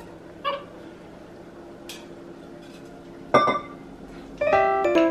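A juice bottle and a drink cup clinking together in a toast: one sharp knock with a brief ring about three and a half seconds in, after a faint tick. Piano music starts near the end.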